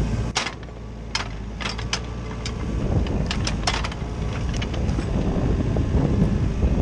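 CAT 304CR mini excavator's diesel engine running with a steady low drone that eases off about half a second in and builds back up toward the end. Many sharp clicks and knocks from the working machine are scattered through it.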